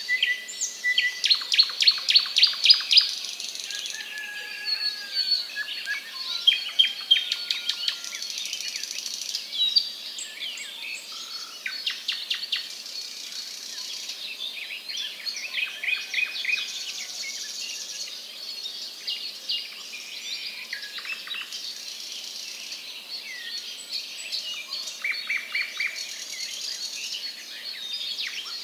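Several wild birds chirping and trilling, with many quick runs of short high notes and a few brief whistles, over a high insect buzz that comes and goes.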